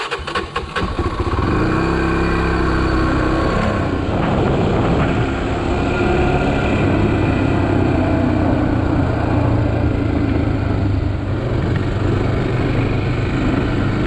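Honda ATV engine starting and riding off, rising in pitch as it accelerates over the first few seconds, then running steadily at cruising speed.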